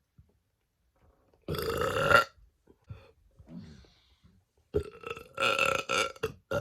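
A woman burping on command: a short, loud burp about a second and a half in, then a longer, drawn-out burp near the end.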